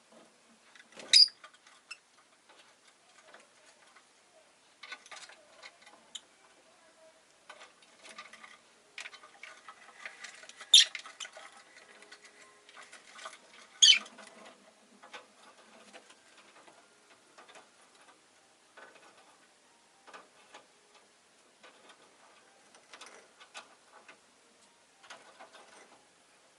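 Rosy-faced lovebird giving three short, sharp, high calls, about a second in, at about eleven seconds and at about fourteen seconds, among soft scratching and tapping.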